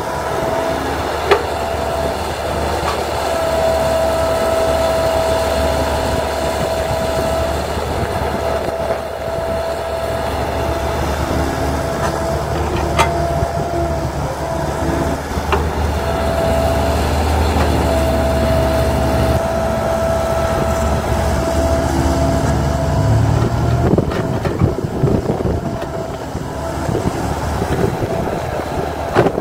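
CAT tracked excavator's diesel engine running under load as it works its boom and bucket, with a steady high whine that comes and goes as the arm moves. A few sharp knocks sound over it.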